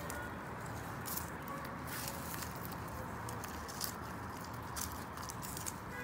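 Gloved hands rustling in loose, dry soil and handling small seedlings: a scatter of faint crackles and patters over a steady background hiss.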